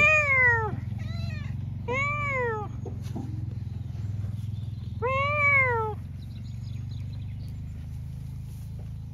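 Domestic tabby cat meowing four times, each meow rising and then falling in pitch. The first and last meows are the loudest and longest.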